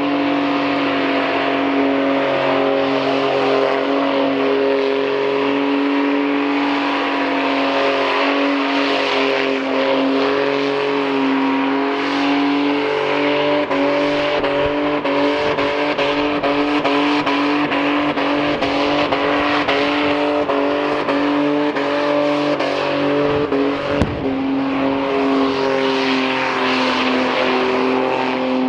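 Car engine running at nearly steady revs, a constant pitched drone over road and wind noise, with a brief knock about 24 seconds in.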